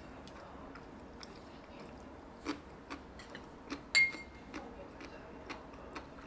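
Scattered light clicks and taps of hard objects, with one sharp clink about four seconds in that rings briefly.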